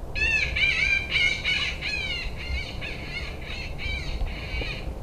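Cottontail rabbit distress call blown or played on a predator call to lure a coyote: a rapid string of high, wavering squeals, loudest in the first two seconds and a little softer after.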